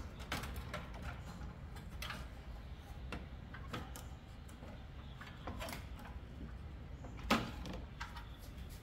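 Scattered light clicks and knocks of plastic and metal parts being handled and tried as a bolted radiator fan assembly is worked loose, with one louder knock about seven seconds in.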